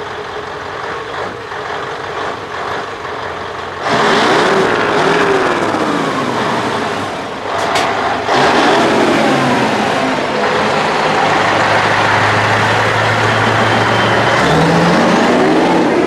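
Scania V8 truck engines on open exhaust pipes, at first running low as the trucks roll out. About four seconds in, one is given full throttle and the sound jumps much louder, its pitch climbing and dropping back through the gears as it pulls away, with a single sharp crack just before halfway.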